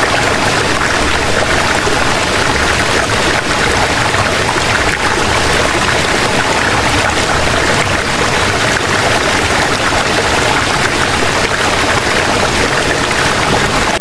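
Water pouring steadily from a small watering can, a loud, even rushing hiss with no break.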